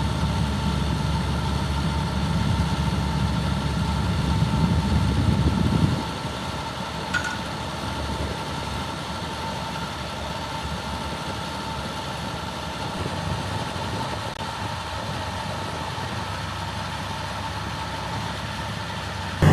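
Heavy excavator's diesel engine running steadily, heavier for about the first six seconds, then dropping back to a quieter, even idle.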